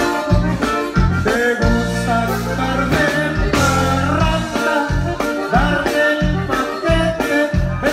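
Live band music: electric bass and a drum kit keeping a steady beat, with a man singing into a microphone.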